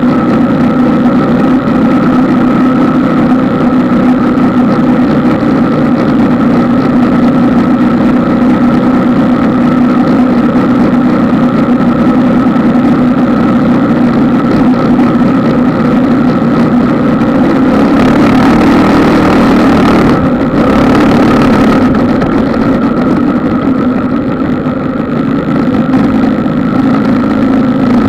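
Vehicle engine running at a steady, even speed while driving slowly along a sandy dirt track. A rush of hiss joins it for a few seconds about two-thirds of the way through.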